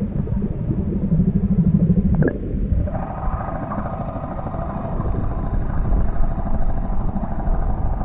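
Muffled underwater rumble, then, about three seconds in, a small Yamaha outboard motor on an inflatable boat running steadily with an even engine hum.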